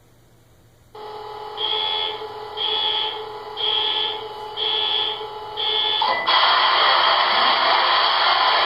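Sound system of an O-scale model diesel locomotive: after a second of near silence a steady hum starts, with a flat buzzer-like beep about once a second, five times, then a loud broad rush about six seconds in that carries on.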